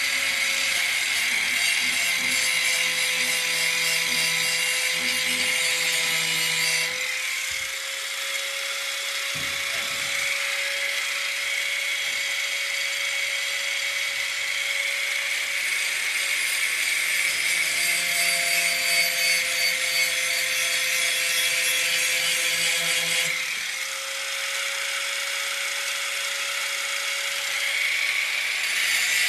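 Handheld angle grinder running continuously, its disc grinding the edge of a steel lawn mower blade to sharpen it and take out dings. The grinding noise grows heavier and lighter a few times as the disc is pressed on and eased off the blade.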